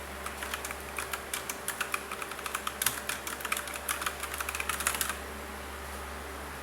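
Rapid typing on the Aula F2088 mechanical gaming keyboard with brown switches and round typewriter-style keycaps, a quick irregular run of key clicks that stops about five seconds in.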